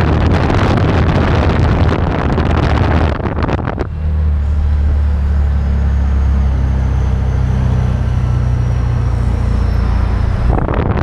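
Patak prototype roadster driving on a city street: wind and road noise rush over the microphone, giving way about four seconds in to a steady low engine drone heard from the cockpit, and the wind rush returns near the end.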